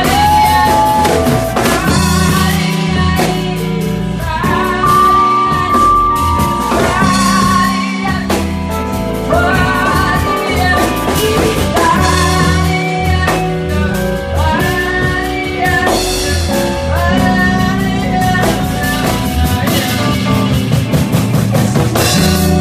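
Live band music: a singer's voice over drums, guitar and bass, in a bluesy rock style.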